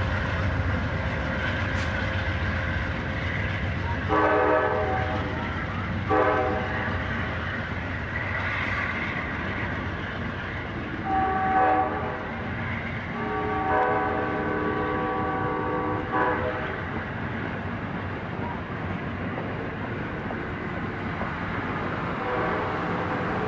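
Amtrak Silver Meteor passenger cars rolling past with a steady rumble of wheels on rail. The departing locomotives' horn sounds four chord blasts a little way off: two short ones, then a short one and a long one of about three seconds.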